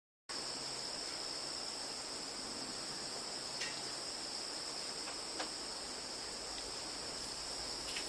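Steady, high-pitched chirring of insects such as crickets, with a couple of faint ticks.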